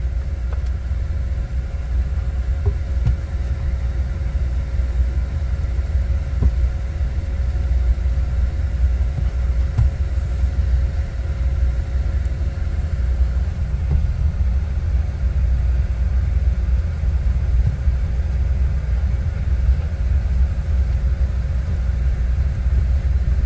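Vehicle engine idling: a steady low rumble with a faint constant hum above it.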